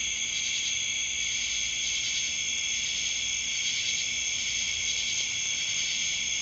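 Steady high-pitched chorus of night insects, unbroken throughout.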